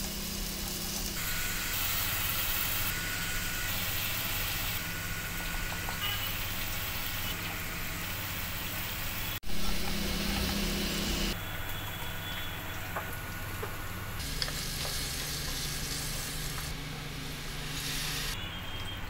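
Food sizzling and frying in hot oil in a pan, a steady hiss broken by abrupt cuts between short clips, one about nine seconds in.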